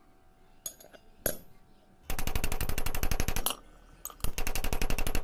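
Two sharp clicks, then two bursts of rapid, evenly spaced crackling rattle, each lasting a second or more, from metalworking equipment in use.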